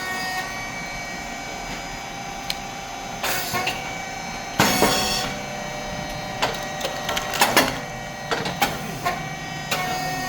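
Rice cake popping machine running: a steady hum from its motor and hydraulic pump, with irregular clicks and knocks from the moving moulds and feeder and one short, loud burst of noise about four and a half seconds in.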